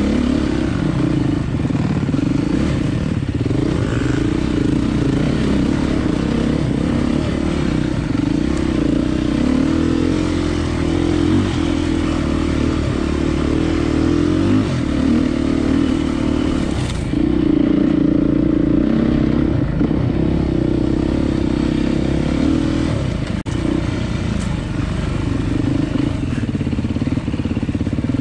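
Vintage vehicle's engine running continuously with a steady drone, its pitch shifting a little as it goes.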